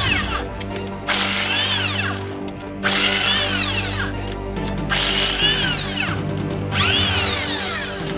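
Impact wrench spinning lug nuts off a car wheel in five bursts about a second long, its whine rising then falling in pitch each time. Background music plays underneath.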